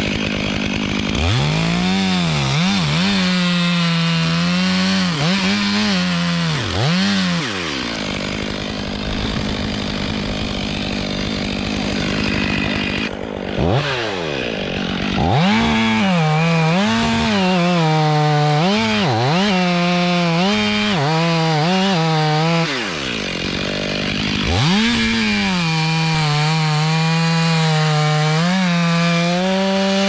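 Two-stroke chainsaw revved up and cutting wood in three long runs, its pitch dipping each time the chain bites, and dropping back to idle between the runs.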